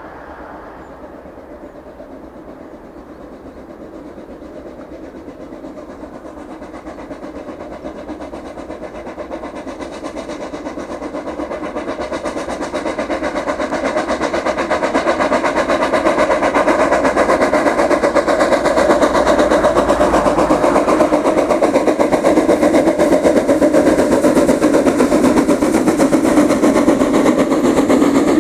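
Small steam tank locomotive pulling a passenger train, its rapid steady running growing louder as it approaches and passes, with the coaches rolling by on the rails near the end.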